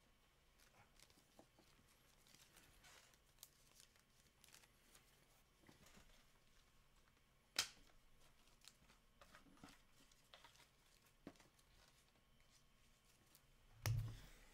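Faint rustling and small clicks of trading cards and plastic card sleeves being handled, with one sharp click about halfway and a low thump near the end.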